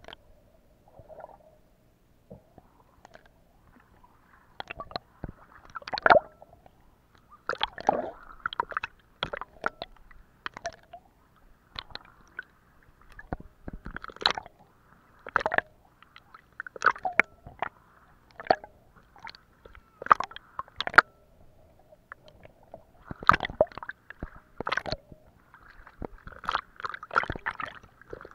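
Water sloshing and gurgling against a camera held at the sea's surface, with irregular splashes and sharp knocks that come every second or two.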